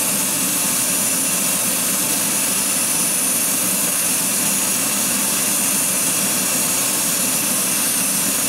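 Steady hiss of a Badger airbrush spraying 2K clear coat at about 30 to 35 psi, laying down the first tack coat, over a steady hum from the spray booth.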